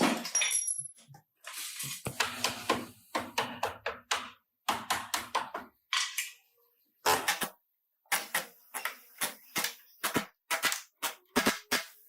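Irregular sharp knocks and clicks, a few each second, with a pause of over a second about two thirds of the way through.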